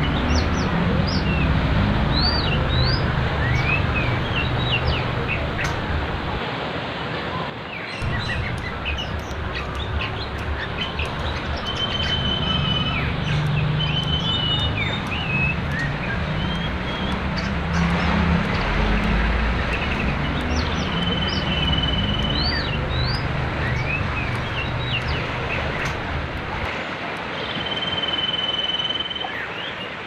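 Songbirds singing: a busy run of quick rising and falling whistles and chirps, with a few long, flat held notes. They sing over the steady rush of a fast-flowing river.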